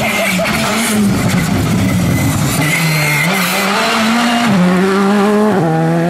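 Skoda Fabia R5 rally car with its turbocharged four-cylinder engine at full stage pace, revving up and down through gear changes as it passes, with sharp crackles in the first second or so.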